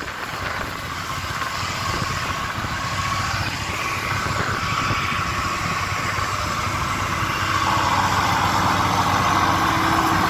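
International Harvester 3588 2+2 tractor's diesel engine running under load, pulling a chisel plow through the soil. It grows gradually louder as the tractor draws near.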